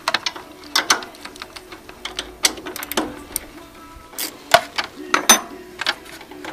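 Irregular sharp clicks and clinks of metal tools and parts being handled during motorcycle engine service work, with music playing in the background.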